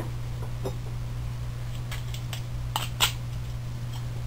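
A few light clicks and taps of small steel nuts and washers being handled and fitted onto a 3D-printed plastic frame vertex. The loudest comes about three seconds in, over a steady low hum.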